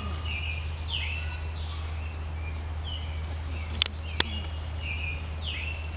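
Small songbirds chirping: a run of short, quick calls, several a second, with a steady low hum underneath. Two sharp clicks come about four seconds in.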